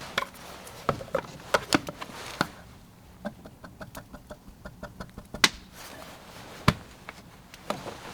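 Camp cooking gear being handled: scattered clinks and knocks, with a quick run of small even ticks in the middle and two sharper knocks later.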